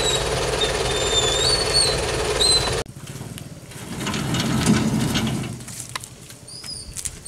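Dump truck's diesel engine running steadily, cutting off suddenly about three seconds in. Afterwards it is quieter, with a low rumble swelling in the middle and a few short bird chirps near the end.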